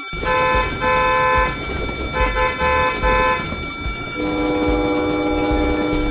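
Train horn sound effect: four short toots in two pairs, then a longer, lower horn blast starting about four seconds in, over the rumble of a running train.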